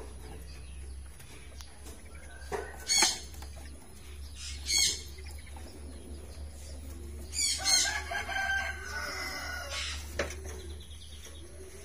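A rooster crowing about halfway through, one long call of a second or two, preceded by two short, sharp high chirps, over a steady low hum.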